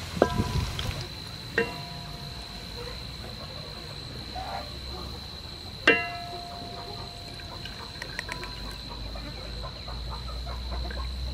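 Shallots sizzling as they deep-fry in oil in a steel wok, fading about a second in. Then utensils knock against the wok three times, each knock leaving the metal ringing briefly, the loudest about six seconds in. A thin steady high whine runs underneath.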